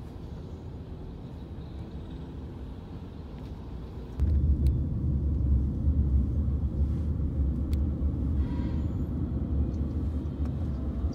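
Road and engine rumble heard from inside a moving car's cabin. About four seconds in it abruptly becomes much louder and deeper, and stays that way.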